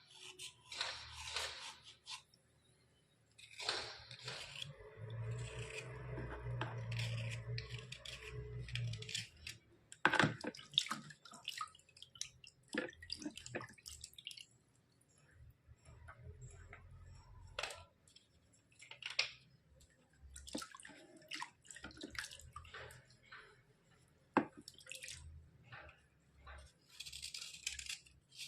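Thick white slate pencils being scraped and cracked: irregular sharp clicks and snaps, with a longer stretch of steady scraping about four seconds in.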